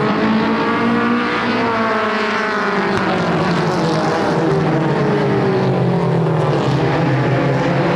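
A pack of mini stock race cars running together on full throttle just after the green flag. Several engines are heard at once, their pitches drifting up and down as the cars go by.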